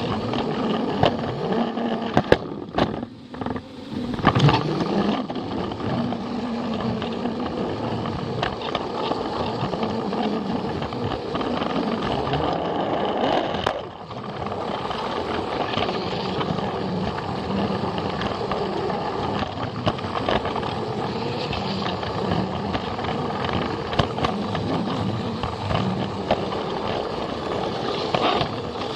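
Plarail toy train's small battery motor and gearbox running steadily, with faint clicks of the wheels on the plastic track. The sound dips briefly about three seconds in and again about fourteen seconds in.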